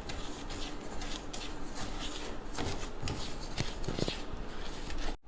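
A utensil scraping and stirring granulated sugar back and forth in a pudding mold on the stove, in irregular strokes. The sugar is just starting to melt and form small lumps on its way to a light caramel.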